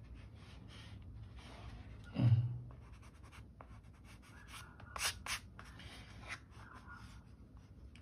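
Mechanical pencil sketching on paper: many light, short scratching strokes, with two louder strokes about five seconds in. A brief vocal sound from the person comes about two seconds in.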